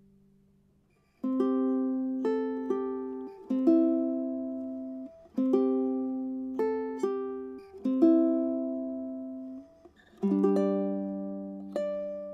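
Solo ukulele plucked, playing a Christmas carol medley: melody notes over chords in phrases with short breaks. The previous chord dies away over the first second before the playing resumes.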